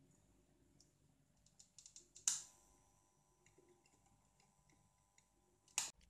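Small clicks and taps of metal tweezers handling a microwave oven's control circuit board, with a sharp louder click about two seconds in and another near the end. A faint steady tone runs between the two loud clicks.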